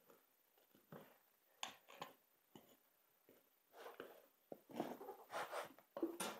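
Faint, scattered handling sounds of a small snowblower tire being worked off its steel rim with a screwdriver: a few sharp clicks and short bouts of rubbing and scraping, busier in the second half.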